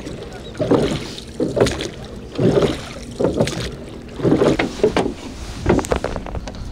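Wooden rowboat being rowed with a pair of long wooden oars: the strokes come in a steady rhythm of about one a second, each a swell of oar and water noise.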